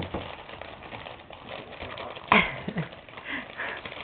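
Plastic cookie bag rustling and crinkling as a dog noses into it while a hand tugs at it, with a louder crackle about two seconds in and a few short low sounds right after.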